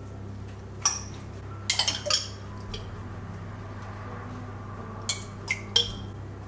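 Glass jar and spoon knocking against a small glass bowl as preserved tomatoes are tipped and scooped out: a sharp clink about a second in, a quick cluster of clinks around two seconds, and three more near the end.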